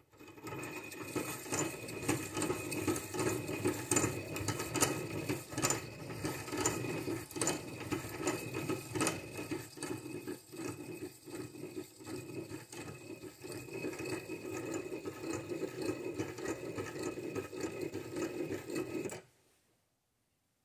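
Piston ring filer's abrasive wheel grinding the steel end of an exhaust valve stem in a continuous run with many small clicks, stopping suddenly near the end. It is a fine pass to shave material off the stem and open the valve-to-lifter clearance to 12 thousandths.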